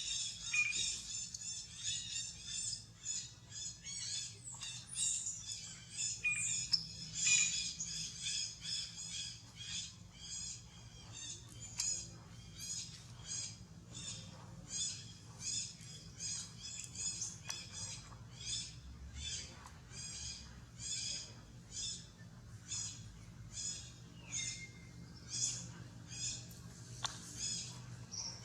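Baby monkey crying: short high-pitched squealing calls repeated over and over, about one and a half to two a second.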